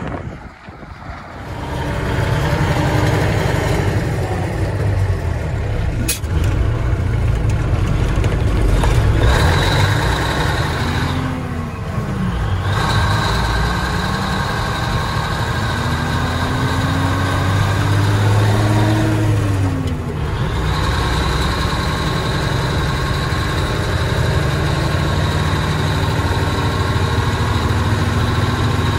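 Straight-piped, naturally aspirated Cummins NHC250 (855) diesel in an M813A1 5-ton truck running, revved up twice, each time rising in pitch and dropping back: once briefly, then a longer climb of a few seconds that falls back to idle.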